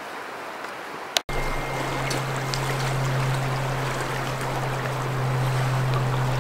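Fast river water rushing past a bank, a steady noisy wash, louder after a brief break about a second in. A steady low hum runs underneath it.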